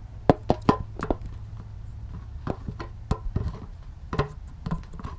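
Scattered, irregular clicks and knocks of handling as the camera is moved and set in place, over a steady low hum.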